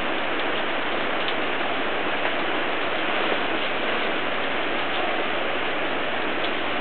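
Steady heavy rain falling on canvas parasols and a wet wooden deck: an even hiss with faint scattered drop ticks.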